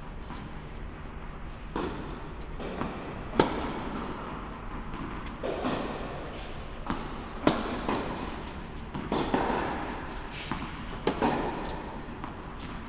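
Tennis balls being struck by rackets and bouncing during a rally on an indoor court: a string of sharp pops, each ringing briefly in the large hall, with the three loudest hits about four seconds apart.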